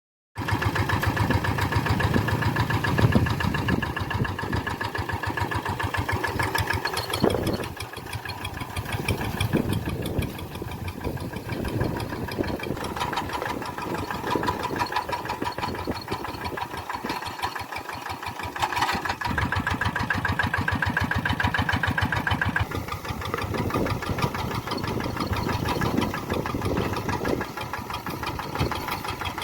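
Tractor engine running steadily with a rapid, even pulse; its loudness drops about eight seconds in and shifts a little after that.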